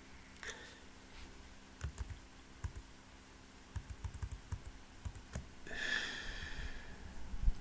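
Faint, irregular clicks and taps, with a short breathy sound about six seconds in.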